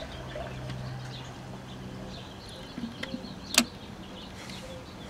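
Crosley 12-volt suitcase record player with its stylus riding the lead-in groove before the music starts: a steady low hum and faint surface hiss through its speaker, with a few light ticks and one sharp click about three and a half seconds in.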